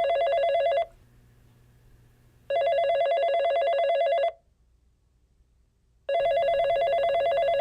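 Telephone ringing in rapid trilling bursts about two seconds long, separated by pauses of under two seconds. One ring ends just under a second in, a full ring follows, and a third starts near the end.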